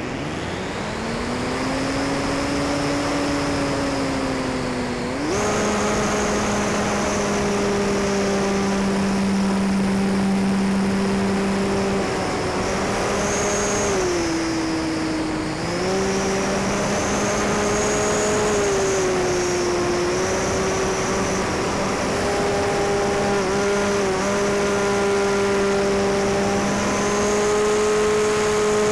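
Electric motor and propeller of an RC plane heard from a camera mounted on the plane, a steady whine over wind rush. The whine climbs from almost nothing at the start, steps up in pitch about five seconds in, and dips briefly a couple of times as the throttle is worked.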